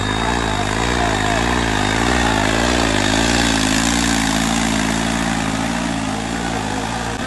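New Holland tractor's diesel engine running hard under heavy load as it drags a harrow through ploughed soil, its pitch wavering and pulsing.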